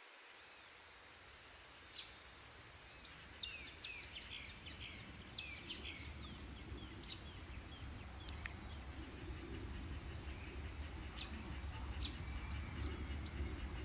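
Small birds chirping and calling, with a quick run of chirps a few seconds in and scattered single chirps after, over a low rumble that slowly grows louder.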